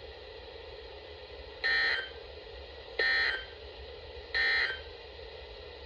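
Emergency Alert System end-of-message signal: three short, buzzy digital data bursts about 1.3 seconds apart. They are the SAME 'NNNN' code that closes an alert broadcast, heard over a radio receiver's faint background hiss.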